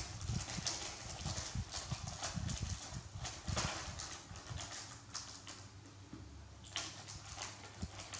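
Plastic snack packet crinkling and crackling as it is worked open by hand, in quick irregular rustles.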